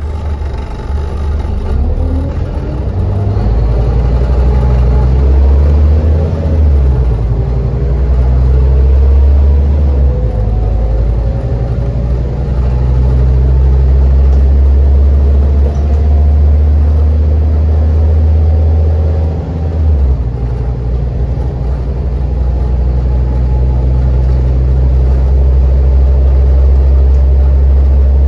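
Scania CN230UD double-decker bus's nine-litre five-cylinder diesel and ZF Ecomat six-speed automatic gearbox under full-throttle kickdown, heard from inside the bus: a loud low drone with gearbox whine rising in pitch as the bus gathers speed. The drone dips briefly about ten and twenty seconds in at gear changes.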